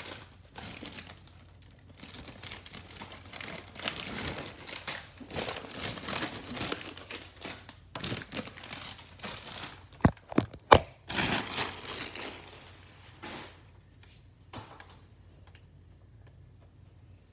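Crinkling of a small bag of classic Lay's potato chips being handled, in repeated rustling spells, with two sharp knocks about ten seconds in; it fades out over the last few seconds.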